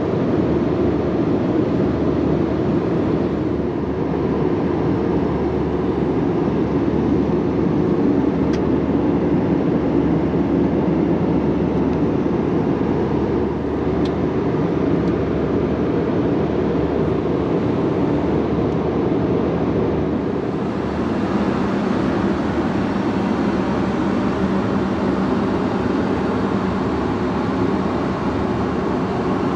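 Steady in-flight cabin noise aboard an Airbus A320-232: an even, low rush of airflow and engine noise. About twenty seconds in the sound changes to a brighter hiss with a steady low hum added.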